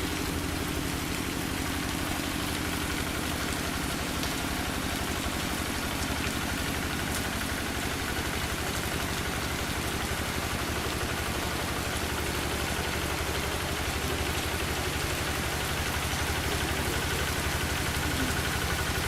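Single-cylinder diesel engine of a Quick G3000 Zeva two-wheel tractor running steadily, with rain hissing over it.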